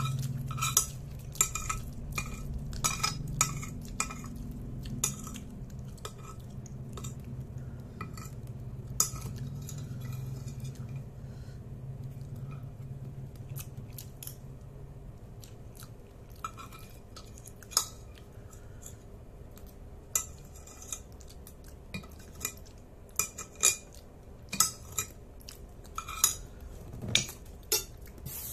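A metal spoon clinking and scraping against a plate again and again as the last instant noodles are scooped up and eaten, with some chewing between the clinks.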